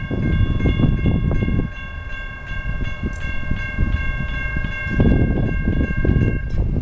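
Railroad crossing warning bell ringing with quick, evenly repeated strikes as the crossing activates and the gate arms come down. Under it is a low rumbling noise that swells at the start and again about five seconds in.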